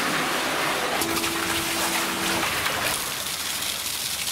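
Brown antifreeze-and-water mix poured from a bucket, gushing and splashing into another bucket.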